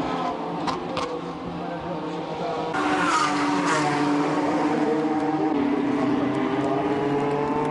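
Renault Mégane Trophy race cars' 3.5-litre V6 engines running hard as they pass, their pitch falling as each goes by. About three seconds in, the engine sound gets louder and fuller.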